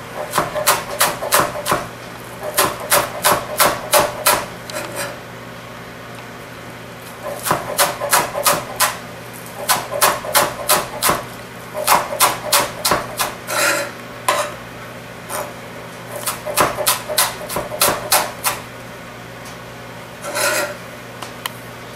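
Chef's knife chopping chives on a cutting board: runs of quick, evenly spaced knife taps, about three to four a second, with short pauses between runs.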